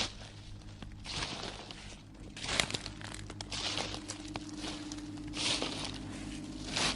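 Horror sound effect: irregular bursts of crinkling, crunching noise about once a second over a low steady drone, with a held tone joining about three seconds in.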